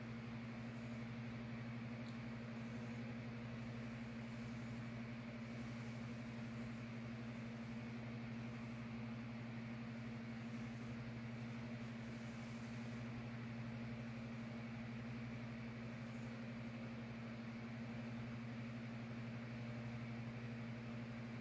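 A steady low hum that does not change.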